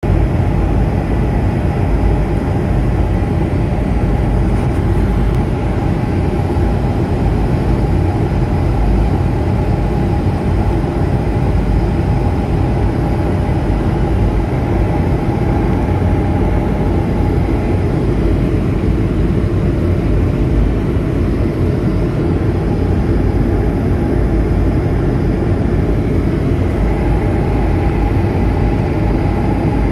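Steady cabin drone of a jet airliner in cruise, heard from a window seat: turbofan engine and rushing airflow, a deep even rumble with a faint steady whine above it.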